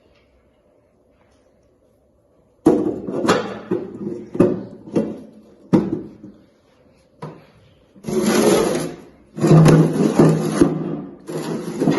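Automatic transmission parts being handled during teardown: after a quiet start, a run of sharp knocks and clatter, then three longer bursts of rattling and scraping near the end.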